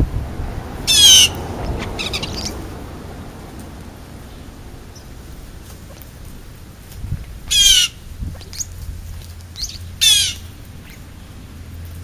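European starlings squabbling over food: three loud, harsh squawks that each sweep down in pitch, about a second in, then twice more near the end. Softer chirps come between them.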